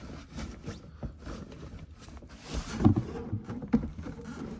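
Rustling, scraping and scattered knocks of packaging being handled as wheel-light strips are pulled out of their box, with a couple of louder knocks about three seconds in.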